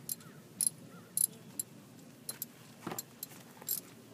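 A run of light, irregular metallic clinks and rattles from small metal objects being handled, about one or two a second.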